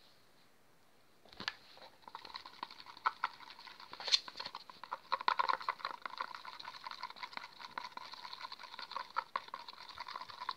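A thin stick stirring liquid glue and colouring in a plastic bowl: rapid, irregular wet clicking and tapping of the stick in the mixture and against the bowl, starting about a second in.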